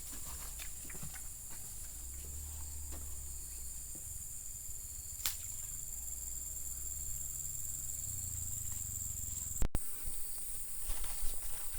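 A steady, high-pitched insect chorus over a low rumble. A single click comes about five seconds in, and the sound briefly cuts out near the end, followed by a few knocks.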